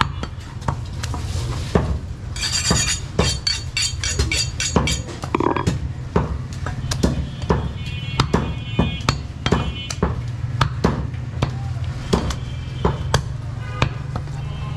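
A heavy meat cleaver chopping goat meat on a wooden log chopping block: sharp, irregular chops, about two a second, over a steady low hum.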